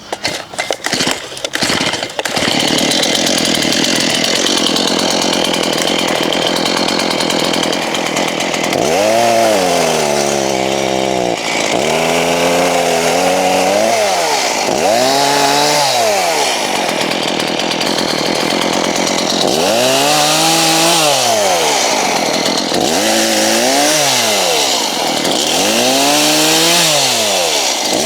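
Chainsaw engine sputtering irregularly for the first couple of seconds, then running continuously at high speed. From about nine seconds in, its engine speed rises and falls again and again, roughly every two to three seconds, as it is revved up and down through cuts.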